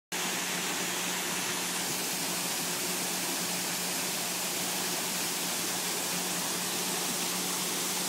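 Waterfall pouring into a pool: a steady rushing hiss of falling water.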